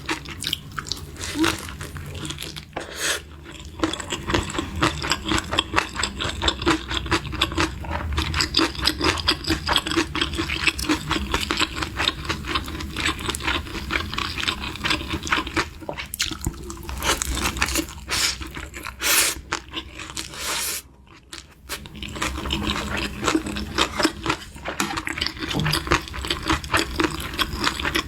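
Close-miked chewing of food: a rapid run of wet crunches and mouth clicks, which pause briefly about 21 seconds in.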